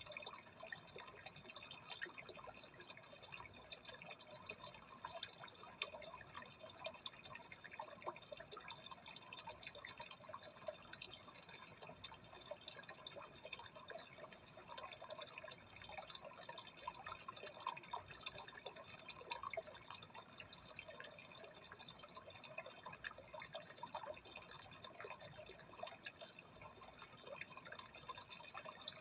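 Faint, steady trickling and bubbling of aquarium water, a continuous stream of small irregular drips and splashes.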